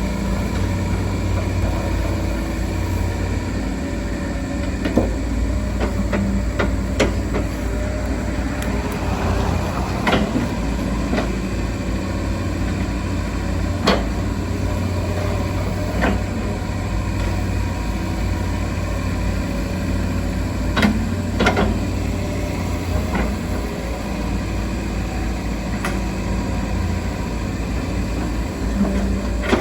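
Hydraulic excavator's diesel engine running steadily, with occasional sharp metal clanks and knocks from the working machine.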